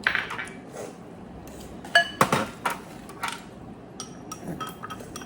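Eating utensils clinking and knocking against a bowl during a meal: a run of sharp clinks about two to three and a half seconds in, one ringing briefly, then a few lighter taps.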